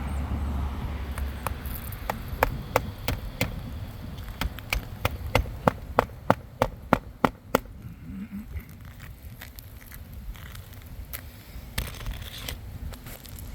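A run of sharp clicks, a couple a second at first and coming faster before stopping about halfway through, over a low wind rumble on the microphone.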